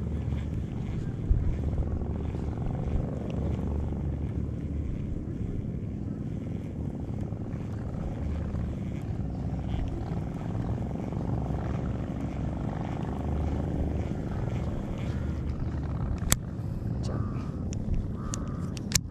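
Boat engine running steadily with a low, even drone, and a couple of sharp knocks near the end.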